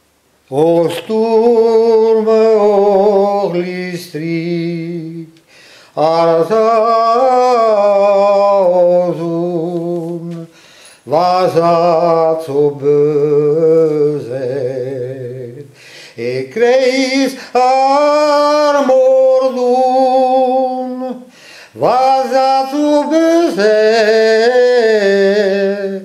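A man singing a Breton song solo and unaccompanied, in about five long phrases with held notes and a wavering vibrato, pausing briefly for breath between them.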